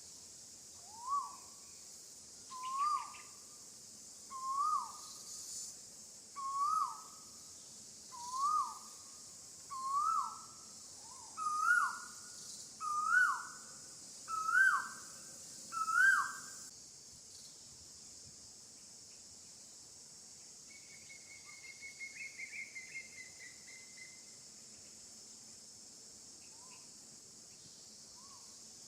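A bird calling a series of short hooting notes, about one every second and a half, each a little higher and louder than the last, then falling silent. A brief fast trill follows later, over a steady high drone of insects.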